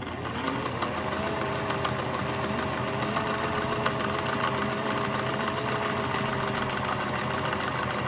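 Singer 403A sewing machine stitching a straight stitch at a short stitch length. The motor's whine rises as it comes up to speed at the start, then holds steady under a fast, even clatter of the needle and feed.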